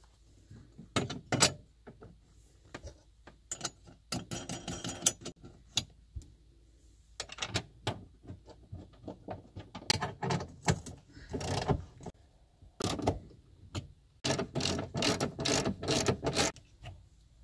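Small hand ratchet with a socket clicking in quick bursts as the bolts of a car battery's hold-down bracket are tightened, with knocks and clicks from the bracket being fitted in between.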